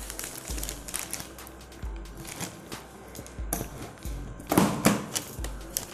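Plastic wrapping crinkling and the plastic packing straps snipped as a packed gas stove is cut open, with sharp clicks and rustles that grow louder near the end. Background music with a steady beat plays underneath.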